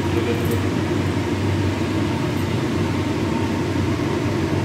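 Chicken pieces frying in hot ghee in a pan: a steady sizzle over a low, even hum.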